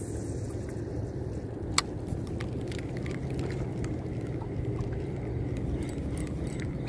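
Steady low outdoor rumble with a faint hum, and a single sharp click about two seconds in.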